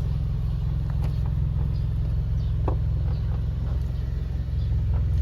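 Nissan Sentra B14's four-cylinder engine idling steadily after a cold start.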